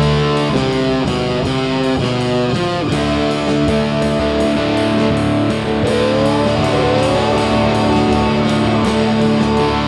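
Rock band playing an instrumental passage: electric guitars over a steady drumbeat, with no singing. About six seconds in, a guitar bends notes upward twice.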